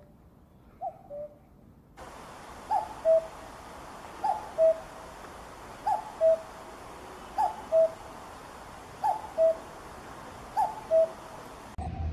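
Common cuckoo calling its two-note "cuck-oo" over and over, the second note lower than the first, about once every second and a half. Faint background hiss comes in about two seconds in and drops away just before the end.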